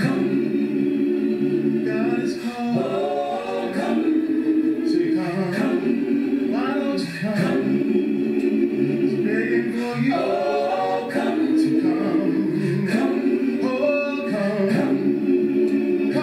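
Gospel choir singing a cappella in several parts, holding long chords on the word "Come" that shift every few seconds.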